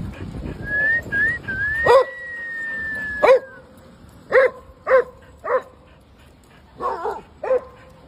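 A dog barking in about seven short, sharp barks spread over five seconds, preceded by a long high whine that starts about half a second in.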